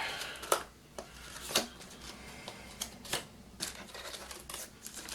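Handling noises as a digital postal scale and its contents are taken out of the packaging: scattered light clicks, knocks and rustles.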